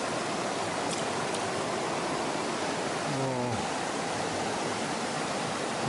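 Mountain stream water rushing steadily right beside the microphone. A man's short voiced sound comes about three seconds in.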